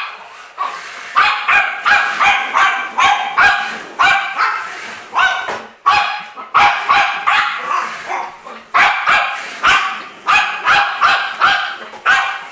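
Jug puppy (a pug and Jack Russell terrier cross) barking at a remote-control car: a long series of short, sharp barks, several a second in quick runs with brief pauses between them.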